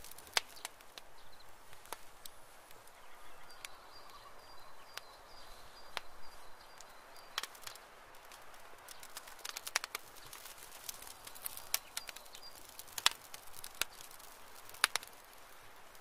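Rabbit moving over dry leaves and loose soil: scattered faint crackles and rustles, a few sharper ones near the end as it scratches at the dirt. A faint steady high tone runs through the middle for several seconds.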